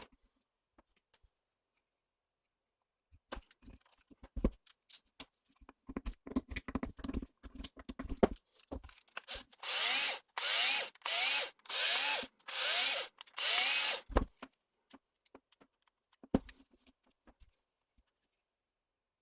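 Electric drill-driver run in five short bursts, each one rising in pitch as the motor spins up, typical of driving screws in or out. Before the bursts come scattered clicks and knocks of small parts and tools being handled.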